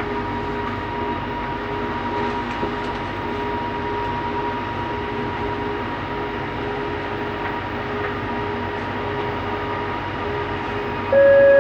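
Bombardier Innovia Metro 300 linear-induction-motor train running steadily between stations, heard from inside the car: even rolling noise with a steady motor whine. Just before the end a loud electronic tone starts.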